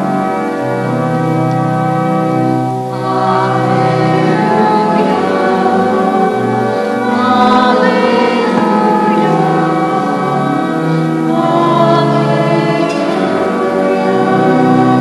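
Organ playing held chords under one or more voices singing a short sung response.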